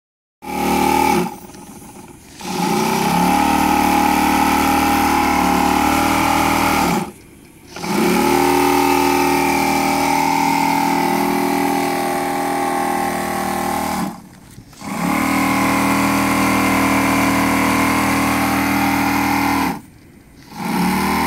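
Homemade model boat's 8cc four-cylinder V single-acting steam engine running fast at a steady pitch. It runs in several stretches: each one rises quickly in pitch as it starts, and the sound drops away briefly between them.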